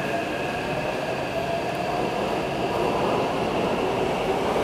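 Taipei Metro C381 train running through a tunnel, heard from inside the car: a steady rumble of wheels on rail with a high whine that fades in the first couple of seconds.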